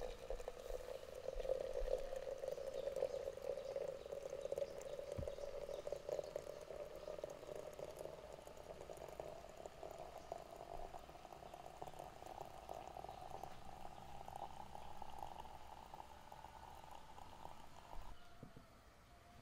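Hot water running from a samovar's tap into a glass teapot, the stream's pitch rising steadily as the pot fills. It stops near the end, when the tap is shut.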